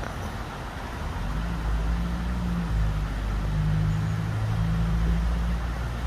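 Motor vehicle engine running: a low, steady hum that comes in about a second in and grows a little louder.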